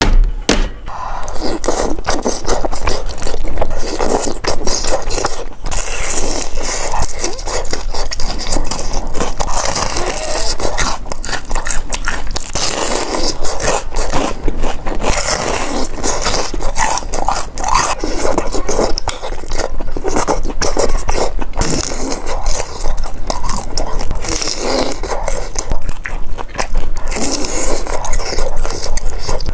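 Close-miked mukbang eating sounds: continuous chewing and biting, heard as a dense, irregular run of clicks and crackles.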